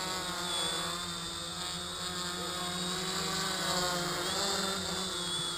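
Quadcopter's electric motors and propellers buzzing in flight, the pitch wavering up and down as the motors adjust.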